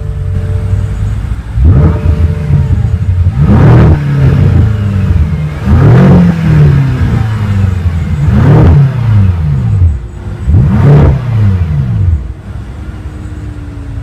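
BMW M6's 4.4-liter twin-turbo V8 revved five times from idle through its quad-tip exhaust, each rev rising and falling back, about every two seconds. It settles back to a steady idle near the end.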